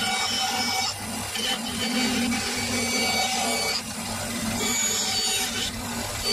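A power tool working a piece of wood, running steadily in several stretches with brief dips about a second in, near four seconds and near six seconds.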